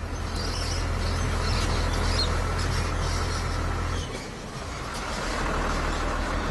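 Sugarcane truck's engine running as the truck drives up a dirt track and passes close by.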